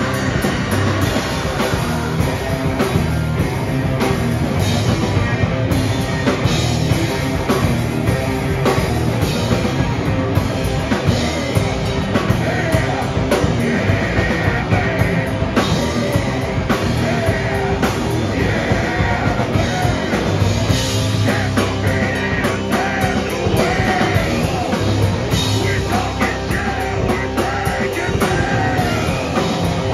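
Live heavy punk/metal band playing loud: distorted electric guitar and bass through amplifiers, a drum kit hit fast and densely, and vocals into a handheld microphone.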